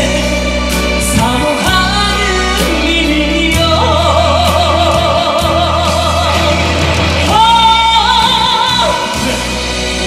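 A man singing a Korean trot ballad live into a microphone over a backing track, holding long notes with a wavering vibrato through the second half.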